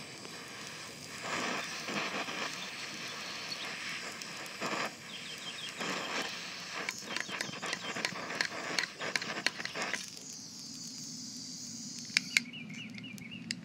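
Butane jet torch flame hissing, with scattered crackles, cutting off about ten seconds in. After that a quieter outdoor background with a few short chirps.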